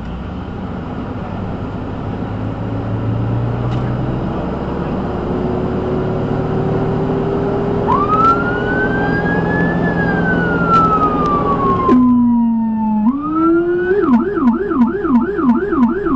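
Ambulance's own electronic siren heard from inside the cab over road and engine noise. About halfway in it gives one long wail that rises and then falls; near the end it switches to a fast yelp of about four sweeps a second.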